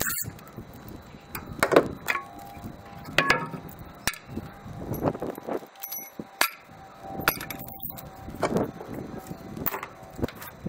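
Metal knocks and clanks, about one a second, several ringing briefly, as the valve cover is worked loose and lifted off the cylinder head of a Chevy 283 small-block V8.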